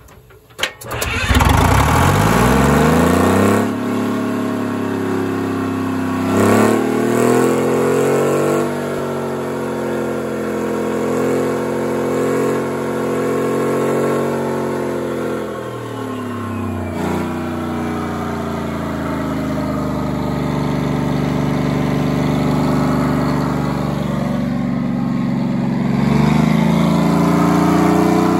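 Detroit Diesel 3-71 two-stroke three-cylinder diesel engine of a fire pump unit starting about a second in and settling into a steady run. Its speed rises briefly around seven seconds in, drops back around sixteen seconds, and climbs again near the end.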